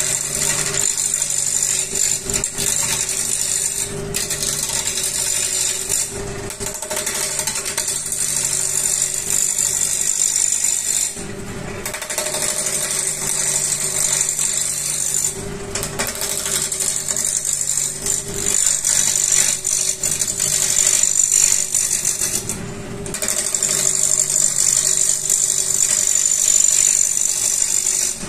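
A turning tool cutting along a long laminated hardwood post spinning on a lathe: a steady, rattling scrape of the cut over the lathe's steady hum. The cut breaks off briefly three times, where the tool lifts from the wood.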